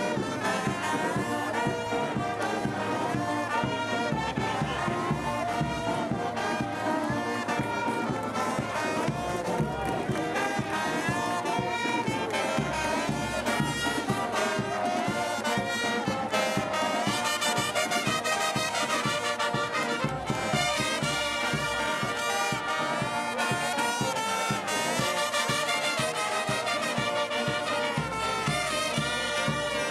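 Brass band music playing continuously, with trombones and trumpets carrying the tune.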